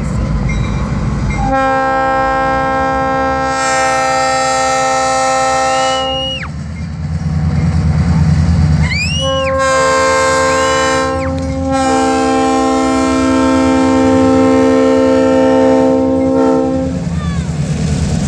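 Air horn of a GP38-2 diesel locomotive sounding a chord in three blasts: a long one, a shorter one about three seconds later, and another long one right after it, as a road-crossing signal. A steady low diesel engine rumble runs underneath.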